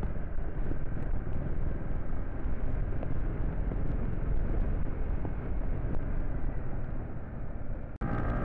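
Motorcycle on the move: wind rushing and buffeting over the microphone together with the engine running. Near the end the sound cuts out for an instant and comes back with a steadier engine tone.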